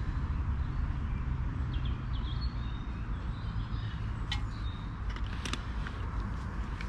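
Steady low rumble of distant road traffic, with a bird chirping briefly about two seconds in and a few sharp clicks from a plastic water bottle being capped and handled near the middle.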